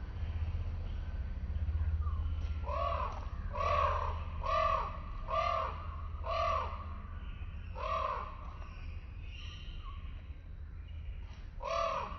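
A bird giving a run of loud, harsh calls, about one a second, then a pause and one more call near the end, over a steady low rumble.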